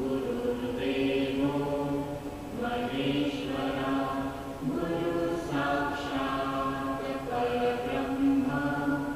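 Background music of voices chanting a mantra in long held notes.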